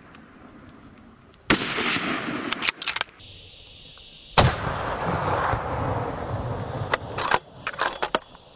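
Two hunting gunshots about three seconds apart, each followed by a long echo rolling off the hillside. A cluster of shorter sharp cracks comes near the end.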